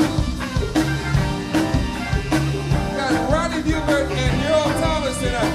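A soul band playing live, with organ over bass and drums keeping a steady beat; a wavering lead line comes in about three seconds in.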